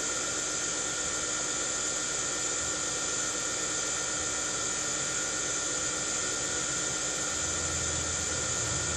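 Steady electric-motor whine over a hiss, unchanging, with a deeper hum joining about seven and a half seconds in.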